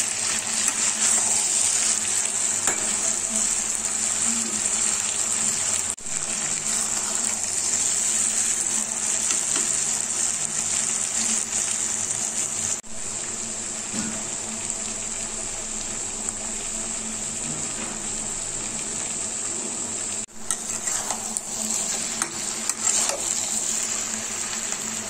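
Okra and onion masala sizzling in mustard oil in a steel kadhai on a low flame, with a spatula stirring and scraping through it; the dish is nearly cooked through. The sizzle is a steady hiss that breaks off for a split second three times.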